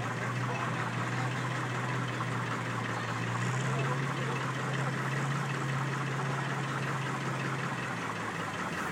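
Minneapolis-Moline G1000 tractor engine running steadily under load on a pull. Its pitch rises slightly about three and a half seconds in, and the engine note drops away near the end.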